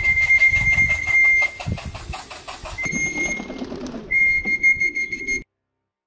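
Three long, steady electronic beeps at one high pitch, the arrival signal of a pigeon-racing clock as pigeons come home to the loft. Over the first few seconds there is a fast flutter of pigeon wings, about seven flaps a second. The sound cuts off suddenly near the end.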